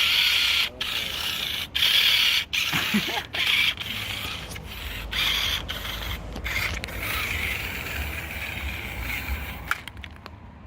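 A cheap toy RC car's small electric motor and plastic gears whirring, cut off again and again in short stops as the throttle is pulsed, with one wheel spinning loose inside its refitted tire. The whirring dies away near the end as the car gives out.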